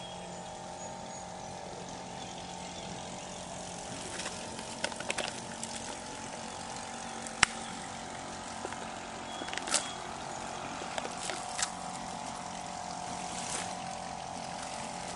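A distant engine drones steadily at a fixed pitch throughout. Over it come scattered crinkles and clicks of an instant-noodle packet and cup being handled, with one sharp click about seven seconds in.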